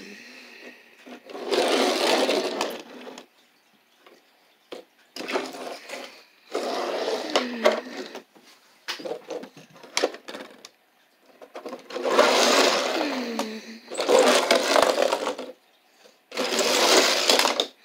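A person imitating race-car engines with their mouth, a buzzing 'vroom' in about six bursts of one to two seconds each, several of them dropping in pitch at the end like a car passing by.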